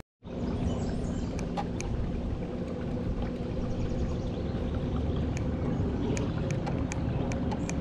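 Steady hum of an electric bow-mounted trolling motor pushing a fishing boat, with water noise around the hull and a few faint ticks.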